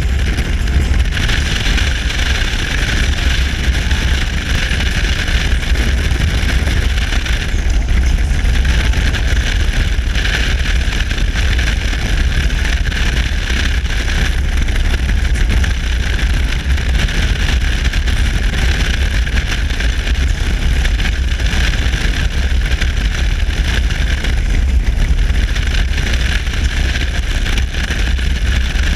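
A touring motorcycle cruising at highway speed, heard mostly as steady wind rumble on the microphone, with a hiss of wind and road noise over the bike's running.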